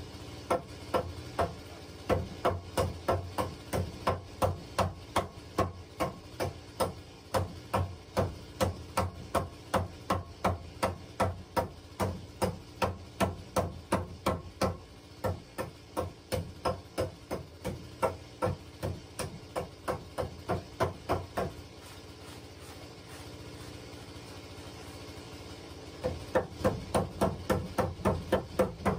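Hand hammer blows on wooden floor planks, about three strikes a second in long steady runs. The hammering stops for a few seconds and starts again near the end.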